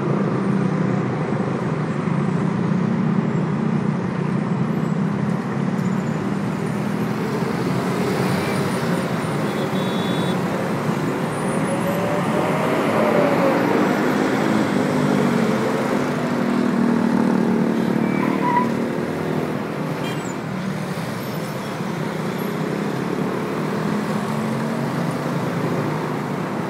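Steady road traffic on a busy multi-lane city avenue: the continuous rumble of car engines and hiss of tyres. Around the middle, one vehicle's engine note rises and falls as it passes.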